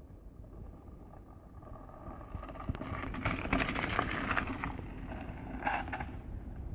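Mountain bike riding along a dirt trail: tyres rolling and rattling over the ground, with a steady low rumble and scattered small knocks that grow louder about two seconds in.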